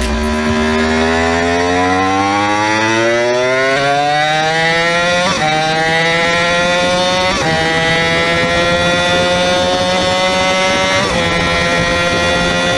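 Yamaha YZF-R1 inline-four sport bike engine at full throttle, accelerating hard from about 80 to over 250 km/h. Its pitch climbs steadily, broken by three quick upshifts about 5, 7 and 11 seconds in, over a low rumble of wind and road.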